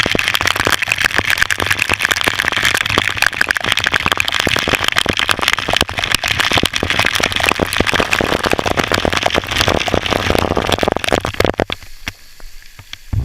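Waterfall water pouring and splashing close to the microphone, a dense crackling rush like heavy rain striking it. It cuts off sharply near the end.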